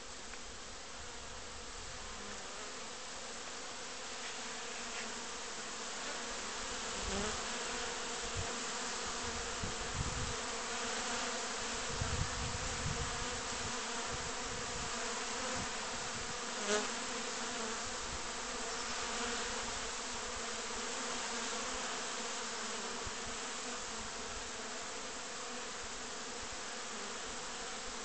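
A crowd of honey bees flying in front of their hives, making a dense, steady buzzing hum. A few low thumps come in the middle, and one louder buzz passes close a little past halfway.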